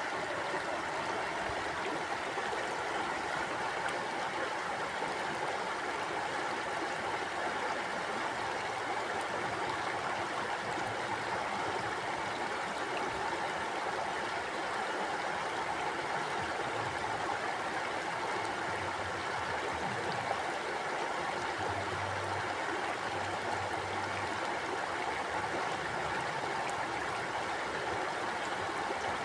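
River water flowing and gurgling over stones in a steady, even rush.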